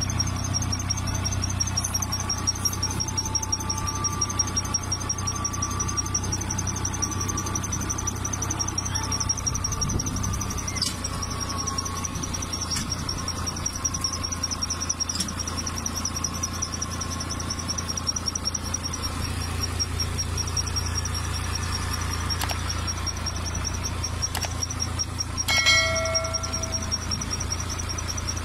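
Engine running steadily with a low hum, and a high, slightly warbling squeal over it. A short squeak near the end.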